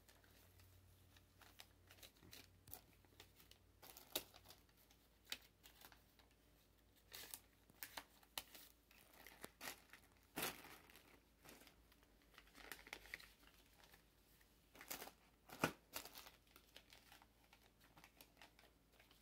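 Faint, scattered rustling and crinkling of paper dollar bills and wrapped candy packages being handled, with a few louder crinkles about ten and fifteen seconds in.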